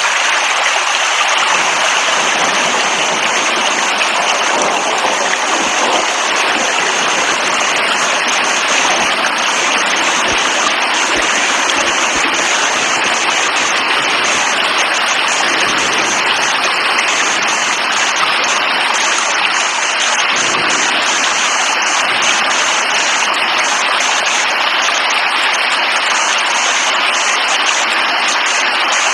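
Heavy, steady rainfall: a constant even hiss of rain with no breaks or changes.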